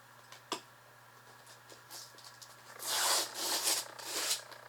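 A sealed cardboard box being torn open by hand: a sharp click, then three loud tearing rips in quick succession.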